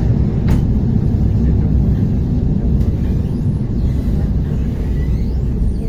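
ER9T electric multiple unit running between stations, heard from inside the carriage: a steady low rumble of wheels and running gear, with a couple of faint clicks in the first three seconds.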